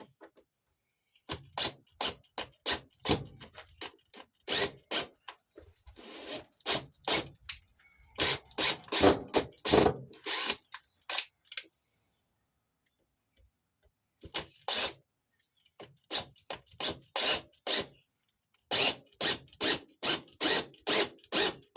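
Rhythmic back-and-forth scraping strokes of a hand tool on wood, about two to three a second. They come in runs, with a break of a couple of seconds past the middle.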